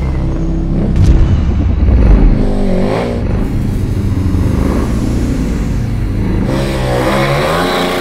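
KTM 1290 Super Duke R Evo's V-twin engine revving hard and falling back as the bike drifts with its rear tyre spinning in loose sand and sawdust. The loudest revs come about one and two seconds in, the revs drop about three seconds in and climb again near the end.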